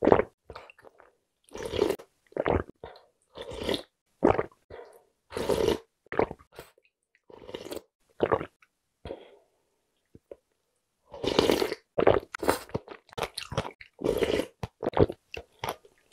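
Close-miked eating sounds of noodle soup: sips of anchovy broth from a spoon, slurps of thin noodles and chewing, in short wet bursts with a quiet pause of about two seconds just past the middle.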